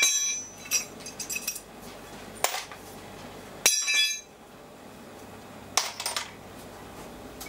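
Steel parts being set down and handled on a steel workbench: two sharp, ringing metal clanks, one at the start and one nearly four seconds in, with lighter clinks and taps between them and a quick run of small clinks about six seconds in.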